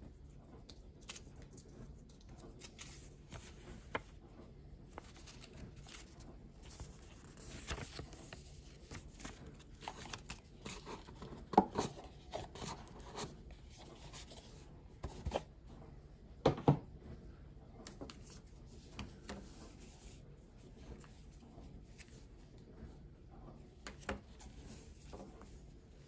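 Hands handling a cardboard box and its paper insert tray: light rustling, scraping and small taps throughout, with a few louder cardboard knocks around the middle.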